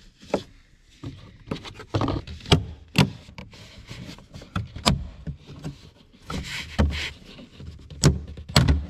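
Plastic centre speaker cover on a Porsche 911 (991.2) dashboard being pried up with a plastic trim tool and fingers. Its retaining clips let go in several sharp snaps, with plastic creaking and rubbing in between.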